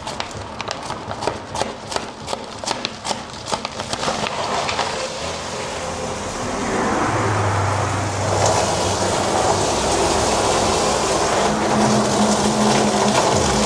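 A run of rapid clicks and knocks, then trapped water from a fire sprinkler line rushing out through a sleeve into a drain barrel, building to a steady gush about seven seconds in.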